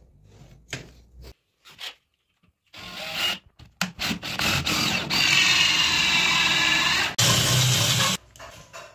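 DeWalt 18V XR cordless drill with a hole saw cutting a round hole through a board. After a few light clicks, the drill starts about three seconds in with short bursts, then runs steadily with a whining pitch, dips briefly and stops about a second before the end.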